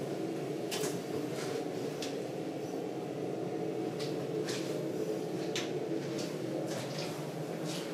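Footsteps: soft scuffs and taps at a walking pace over a steady low hum.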